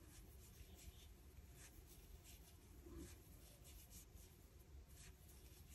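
Near silence, with faint irregular scratching and light ticks of knitting needles working wool yarn, stitch by stitch.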